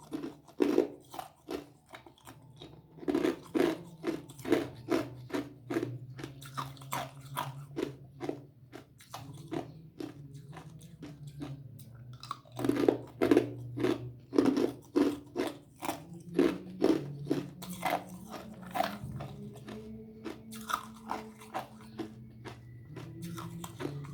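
Ice being bitten and crunched between the teeth: runs of sharp crunches, a few a second, broken by short pauses.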